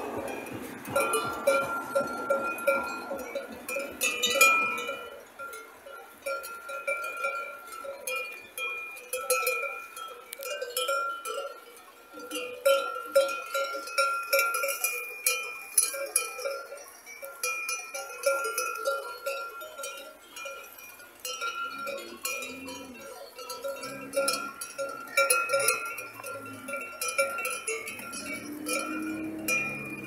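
Sheep bells clanking irregularly as the flock grazes, a jumble of ringing metallic strikes throughout. A sheep bleats a few times in the last third.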